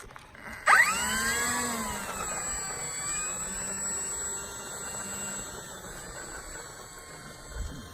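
Electric motor and propeller of a 4S-powered RC Edge 540 aerobatic plane opening up to full throttle: a sudden rising whine about a second in. It then runs on steadily while its pitch sags and it slowly fades as the plane pulls away.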